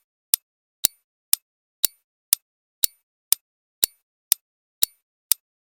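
Countdown-timer tick sound effect clicking steadily, about two ticks a second, marking the answer time after a quiz question.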